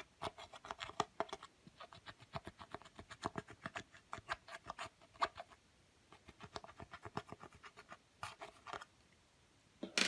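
Clear slime being kneaded and pressed by hand, giving rapid runs of small sticky clicks and pops. The runs pause briefly about halfway, fall quiet near the end, then come back as one louder cluster of pops.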